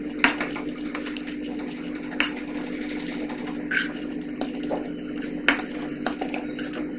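Metal spatula stirring a dry mixture of grated coconut, chopped dates and nuts in a steel kadhai, with irregular scrapes and clinks of metal on metal. A steady low hum runs underneath.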